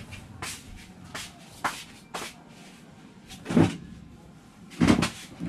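Light knocks and steps as a person comes up to a table, then two louder, deeper thumps as he sits down on a plastic chair.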